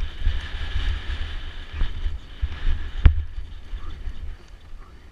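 Wind buffeting the camera microphone on a fast mountain-bike descent over dirt singletrack, with tyres rolling and the bike rattling over the rough ground, and one sharp knock about three seconds in.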